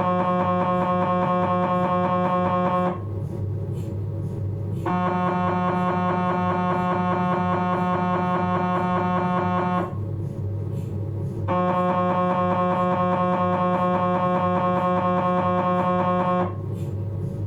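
Philips 1.5 T MRI scanner's gradient coils buzzing a loud, steady multi-toned drone during a respiratory-triggered T2 axial abdominal sequence. The drone runs in spells of about five seconds, broken twice by pauses of about two seconds where only a low hum remains, as the scan waits for the patient's next breath.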